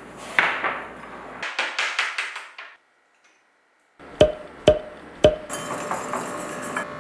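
Kitchen handling noise ending in a quick run of clicks, then after a sudden cut to silence three sharp knocks with a short ring, about half a second apart, leading into background music.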